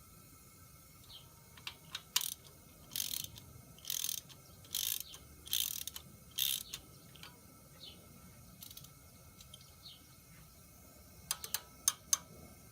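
Hand tools clicking and ratcheting on metal in short runs, about six in the middle of the stretch, then a few sharp metal clicks near the end, as valve springs are worked on.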